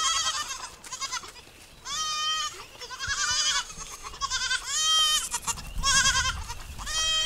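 A herd of goats bleating: high, wavering bleats, about six of them, one every second or so, some from different animals.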